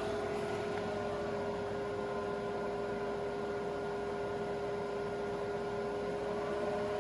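Steady electrical hum and whine of an induction cooktop on full power, fed through an EcoFlow Delta 2 power station, with the power station's cooling fans running. One fainter tone sags lower and climbs back over several seconds.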